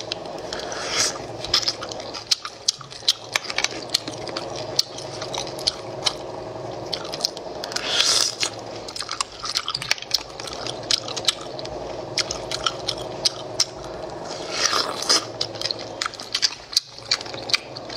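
Close-up eating sounds of a person biting and sucking braised abalone off the shell: rapid wet clicks and smacks of chewing, with three longer sucking sounds, about a second in, midway and near the end, over a steady low hum.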